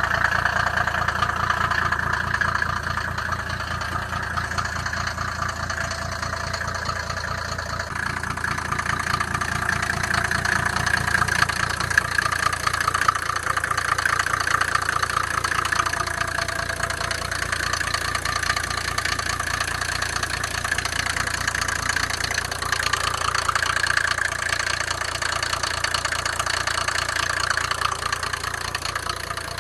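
1988 Mercedes-Benz G-Class W460 300 TD turbodiesel engine idling steadily.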